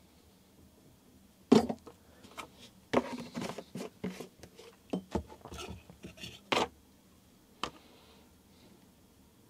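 Oil-filled Headshok bicycle fork damper being pumped up and down by hand to bleed it: a sharp metal knock about a second and a half in, a few seconds of irregular clicks and gurgling, then two more knocks. The gurgling is air cavitating in the oil and making bubbles, a sign that air is still being worked out of the damper.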